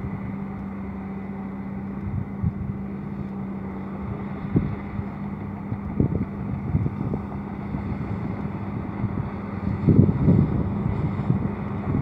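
Komatsu D65PX crawler bulldozer's diesel engine running steadily under load as it pushes a pile of soil, with a few short louder bumps, the strongest about ten seconds in.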